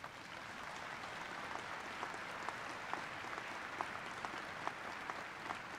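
Audience applauding: a steady spread of many hands clapping that starts at once and keeps going.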